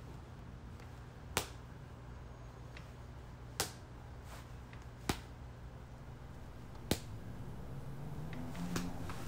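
A small ball tossed up and caught in the hand over and over: five sharp smacks, one every one and a half to two seconds, over a steady low room hum.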